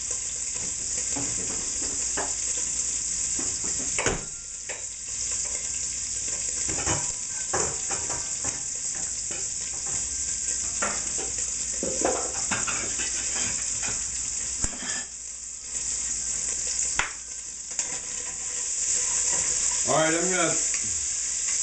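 Bacon fat frying in a stainless steel stockpot, a steady sizzle with scattered sharp clicks and knocks. Near the end a spoon stirs and scrapes in the pot.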